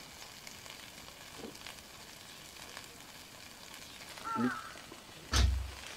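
Duck and green onions sizzling steadily on a hot grill plate. A brief voice sounds about four seconds in, and a heavy thump comes just before the end.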